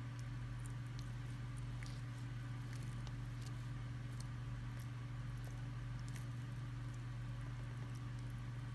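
Blue-tongued skink licking and biting into soft, wet food: faint, scattered sticky clicks and squishes over a steady low hum.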